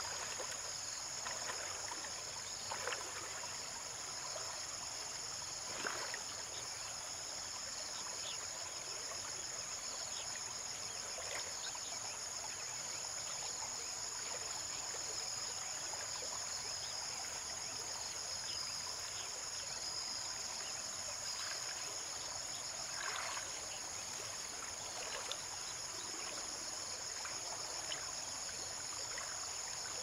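Steady high-pitched insect chorus, with soft water sloshing and a few small splashes from wading through shallow stream water.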